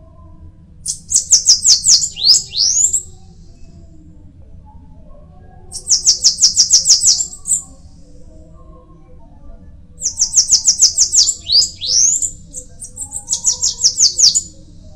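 Bananaquit singing: three bursts of fast, high, repeated notes, each closing with quick rising slurred whistles. Short pauses separate the bursts, and the last burst is the longest.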